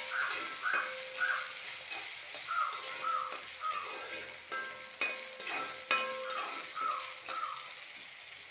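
Chopped ginger, green chillies and curry leaves frying in hot oil in a metal pan with a steady sizzle, while a steel spoon stirs and scrapes around the pan with repeated strokes and a few sharp clinks against the metal. The mixture is being sautéed until it turns red.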